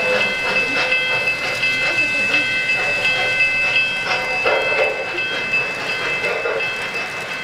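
Three-rail O-gauge model freight train rolling past, its wheels clicking over the rail joints about two or three times a second under a steady high whine.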